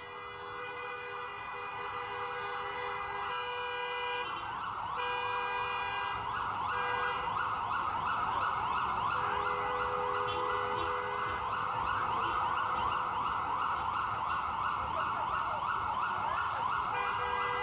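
Emergency vehicle siren on a fast yelp, quick rising sweeps repeating over and over. It grows louder over the first several seconds, then holds steady.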